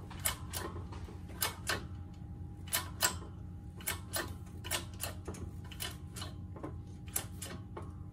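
Hydraulic shop press being pumped down, its ram pressing a VSS speedo ring gear onto a Honda K-series differential: sharp clicks, mostly in pairs about a second apart, over a steady low hum.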